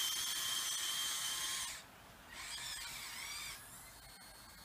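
Small electric motors of an RC CAT 906 wheel loader whining: a steady high whine that stops just under two seconds in, then a shorter wavering whine about half a second later.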